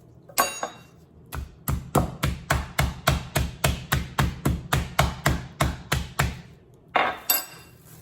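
Aluminium meat mallet pounding a piece of turkey breast under plastic wrap on a board: a few single knocks, then a steady run of blows at about three to four a second for several seconds. A crinkle of plastic wrap near the end.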